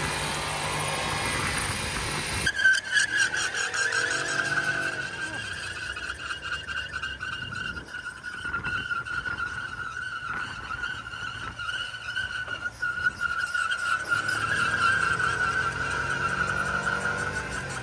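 2021 Ford F-150's front tire spinning on a steel plate in a burnout: a dense, loud roar for the first couple of seconds, then a steady high tire squeal with a fast chatter, the engine rising and falling underneath.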